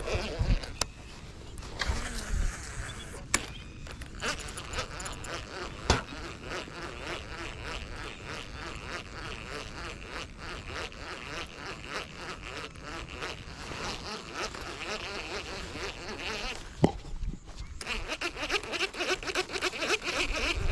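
Insects buzzing in a fast, evenly pulsing drone, with a few sharp knocks scattered through it.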